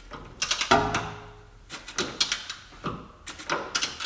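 Wrench and socket working on the steel lower-arm bolt of a car's front suspension: a quick run of sharp metallic clicks and knocks, the loudest just under a second in with a short ring, then scattered single knocks.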